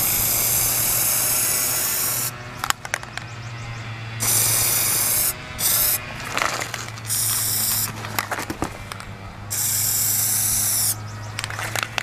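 Aerosol can of Plasti Dip rubber coating spraying in five bursts of hiss, the first and longest about two seconds, the others shorter. There are a few sharp clicks between the bursts, and a low steady hum underneath.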